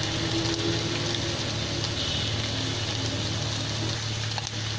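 Blended chili paste sizzling steadily in hot oil in a wok as it goes in on top of frying onions and garlic, over a steady low hum.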